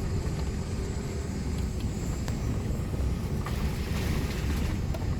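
Floodwater pouring over a dam spillway: a steady, low rushing rumble.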